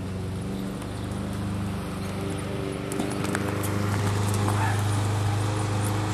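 Hoofbeats of a ridden horse on a sand arena, over a steady low hum that grows a little louder about halfway through.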